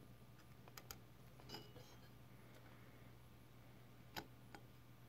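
Near silence with a handful of faint light clicks, the sharpest about four seconds in: fine metal tweezer tips touching the pins of an LGA 771 CPU socket as bent pins are straightened.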